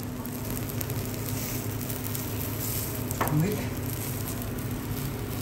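Food sizzling as it cooks, over a steady low hum. A brief rising squeak about three seconds in.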